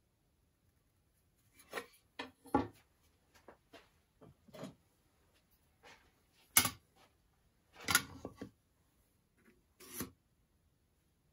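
Steel rules being picked up and set down on a wooden workbench: a string of light knocks and rubs, with three sharper clacks in the second half.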